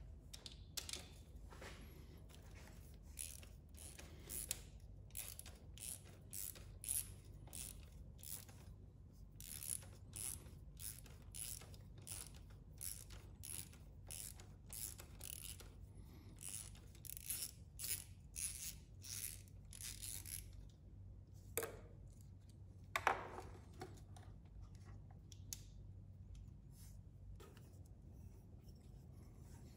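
Socket ratchet with a 10 mm socket clicking in quick short strokes, about two a second, as it turns the bolt for the negative ground ring terminal. The clicking stops after about twenty seconds, followed by two louder handling noises and then quiet.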